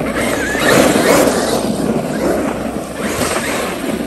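Traxxas X-Maxx electric RC monster truck driving fast over paving bricks: a rushing rumble of tyres and drivetrain that swells and fades as it passes.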